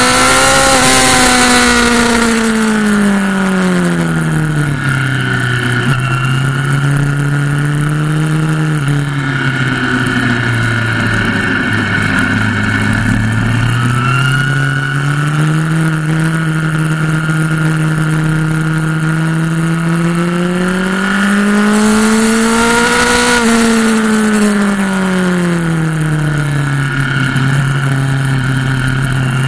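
Motorcycle engine heard from the bike itself while lapping a race track. The engine note falls early on, stays low through a slower stretch, climbs steadily under acceleration to a peak about three-quarters of the way through, then drops again. Wind rush is loudest at the two fastest points.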